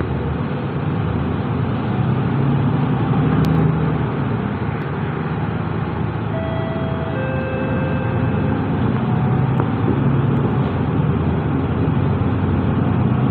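Mercedes-Benz Citaro diesel city bus heard from inside the cabin: its engine and drivetrain run steadily with a low hum as the bus moves off and drives on, growing slightly louder. A few faint short tones sound partway through.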